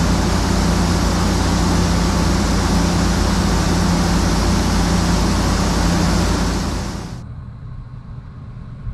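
Heavy vehicle engine running steadily with a loud rushing noise over a low hum. It cuts off abruptly about seven seconds in, leaving a much quieter low rumble.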